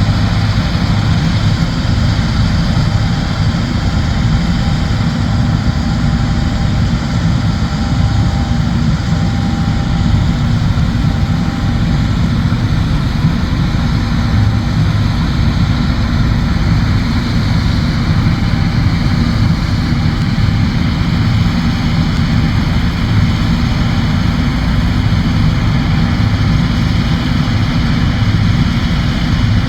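John Deere S780 combine harvester running steadily, a constant low engine and machinery drone with a few steady whining tones above it.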